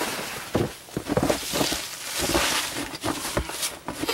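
Conifer boughs rustling and packed snow crunching as the boughs are handled and laid down on a snow floor: a dense run of irregular crackles and crunches.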